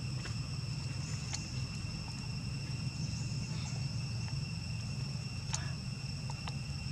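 Steady insect chorus: several unbroken high tones over a low steady rumble, with a few faint clicks.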